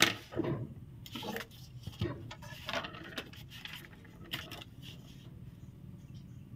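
Drafting tools handled on kraft pattern paper: a wooden ruler and a clear plastic French curve slid and set down, and the paper rubbed and rustled under the hands, in short irregular scrapes with a sharper one at the very start.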